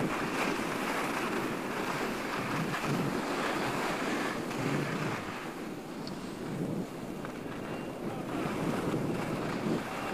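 Skis sliding and scraping over groomed snow on a fast downhill run, with wind rushing over the microphone, a steady, rough noise that swells and eases.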